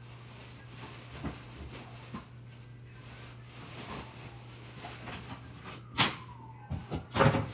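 Laminate flooring planks and a plastic speed square being handled and set down on a landing: light taps, a sharp knock about six seconds in, and a quick run of knocks near the end, over a steady low hum.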